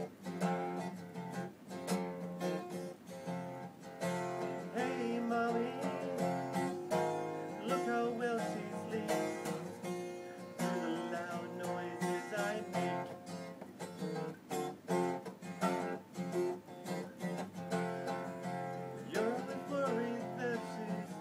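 Acoustic guitar being strummed and picked steadily, with a voice singing over it in places.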